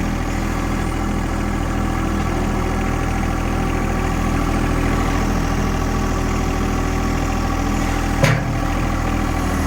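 Engine of a bucket-loader machine running steadily at low speed while the bucket works rocks into a channel, with one sharp clunk near the end.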